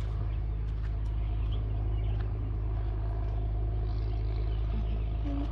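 Engine-driven irrigation water pump running steadily, a constant low drone.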